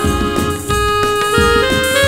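Instrumental break in a Hindi Christmas carol: an electronic keyboard plays a melody of held notes that step from one pitch to the next over a steady hand-percussion beat, with the choir silent.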